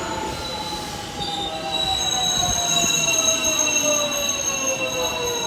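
JR West 207 series electric train, a unit known for its unusual motor sound, with its inverter and traction motors whining. Several tones fall steadily and smoothly in pitch as the train slows, and high steady whistling tones join in after about a second.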